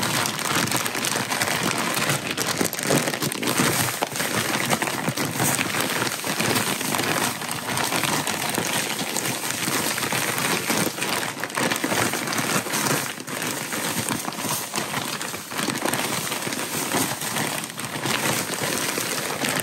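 Zip-top plastic bag crinkling steadily as it is shaken to coat quartered cinnamon-roll dough pieces in cinnamon sugar.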